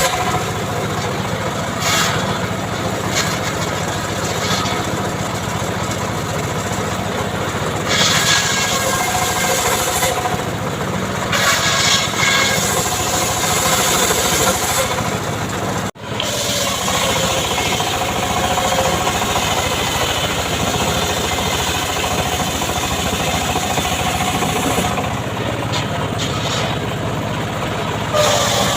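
A homemade chainsaw's small petrol engine running loudly and steadily while sawing mahogany, rising in pitch now and then. The sound cuts out for an instant about halfway through.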